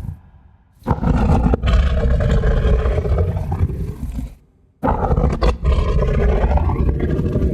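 Two long, rough, deep monster growls, each about three and a half seconds, with a short break between them: a designed creature growl sound effect.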